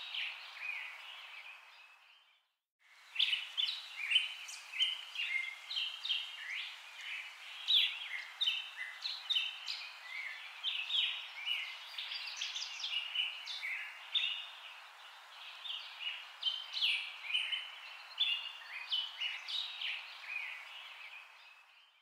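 Many small birds chirping and twittering over a steady hiss, a dense run of short high chirps. The sound drops out for under a second about two seconds in, then carries on.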